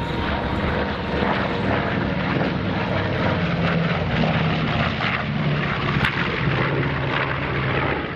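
B-25 Mitchell's twin Wright R-2600 radial engines droning steadily as the bomber flies a wingover at unchanged power.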